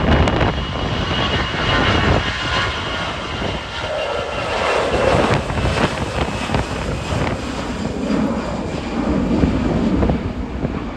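Airbus A320-214's twin CFM56 turbofan engines as the jet passes close by: a steady high whine over the engine noise, then a lower tone that falls in pitch as it goes past.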